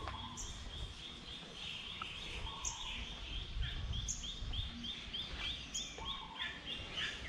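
Birds chirping: a fast, even run of short high chirps, about three a second, with a separate higher note every second or so, over a low background rumble.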